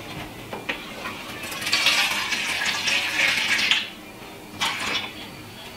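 Water runs for about two seconds, filling a container, with light clinks of kitchenware before and after.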